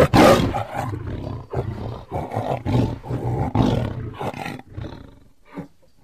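Tiger roaring: a sudden loud roar, then a string of shorter roaring pulses about every half second that fade out over about five seconds, with one last short call near the end.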